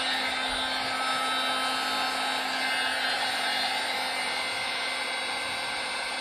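Milwaukee M18 cordless heat gun running steadily, its fan blowing hot air with an even hum onto a decal to soften the glue.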